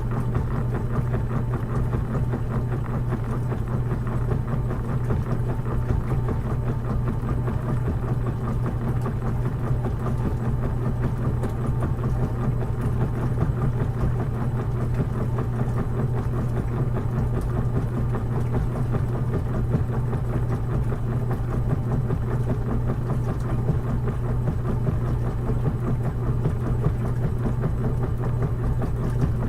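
Washing machine running with a steady low hum and mechanical noise that does not change.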